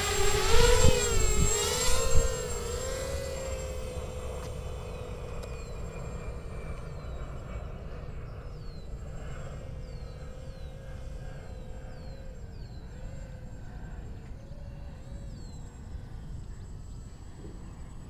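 Eachine Racer 250 quadcopter's motors and propellers whining as it lifts off close by, with the pitch wavering and gusts of prop wash buffeting for about two seconds. Then it flies off and its whine carries on fainter and steadier.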